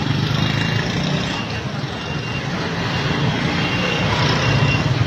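Steady street traffic noise with engines running, and a few short high-pitched tones partway through.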